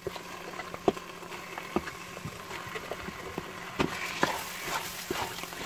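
Marinated chicken pieces going into a pan of hot curry masala: scattered soft knocks and plops as the pieces land, over a light sizzle that grows a little near the end.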